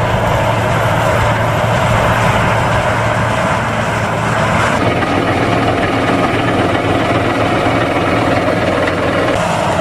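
John Deere tractor engines running steadily in the field. About five seconds in, the sound changes to a tractor engine's steady hum heard from inside the cab.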